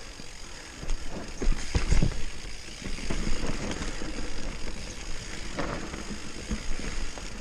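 Mountain bike rolling fast down a dirt forest trail: steady tyre and chain rattle, with several knocks from bumps and roots, a cluster of them about a second or two in and another near the five-and-a-half-second mark.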